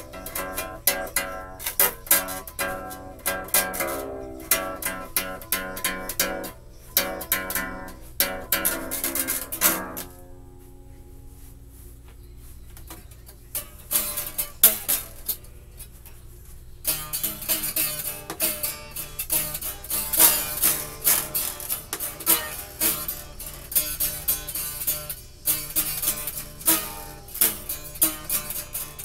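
Acoustic guitar played solo: picked notes at first, then a quieter stretch of several seconds with only a few ringing notes, then busier playing with many quick strokes from about two thirds of the way through.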